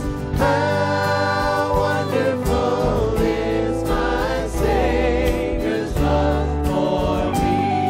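A church worship team of several singers singing together into microphones, backed by keyboard and acoustic guitar, with held notes that waver in pitch.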